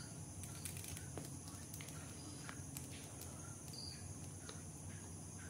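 Quiet background noise: a steady high-pitched drone and a low hum, with a few faint ticks.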